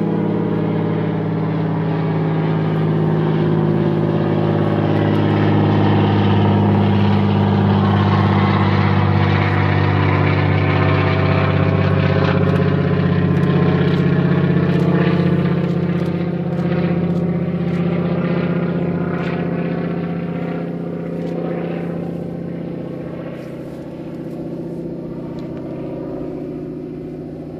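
Engine of a small propeller plane passing, a steady low note that grows louder for about a dozen seconds and then slowly fades.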